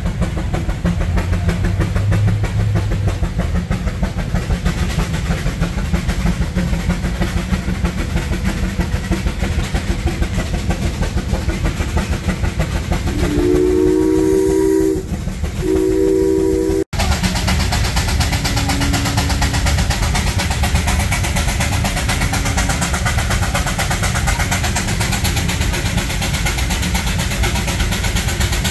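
Steam traction engine whistle sounding a chord of several notes, in two blasts of about a second and a half each, about halfway through. Under it, engine machinery runs with a rapid, even beat.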